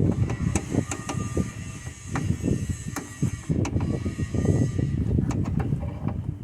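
Irregular clicks and knocks of hand-tool work, fitting and tightening a nut on a car's fuse box, over a continuous uneven low rumble of handling or wind noise.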